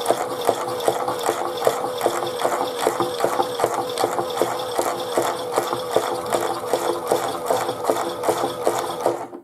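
Chad Valley toy washing machine's small motor turning the drum in a slow wash tumble: a steady motor hum with fast, continuous clicking and rattling from the plastic drum and gears. The sound cuts out abruptly just before the end.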